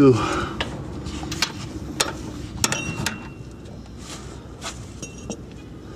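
Hand tools on the hub assembly bolts: scattered metallic clinks and ticks as a socket and torque wrench are worked onto a bolt, one clink about three seconds in ringing briefly.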